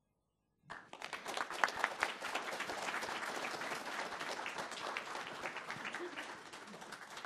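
Audience applauding: the clapping starts abruptly about a second in, holds steady, and tapers off near the end.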